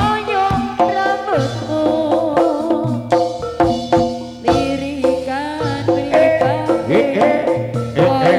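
Live jaranan gamelan music: hand drums beat a quick, busy rhythm under a pitched melody that wavers and slides up and down.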